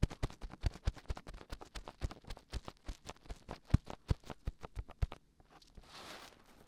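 Dried glue being peeled off a binaural microphone's ear, close up: a quick irregular run of crackles and small pops, then a softer rubbing rustle near the end.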